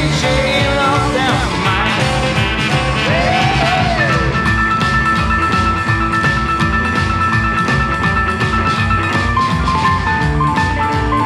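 Rockabilly music with a steady beat; about four seconds in, a long note is held for several seconds before a run of stepping notes.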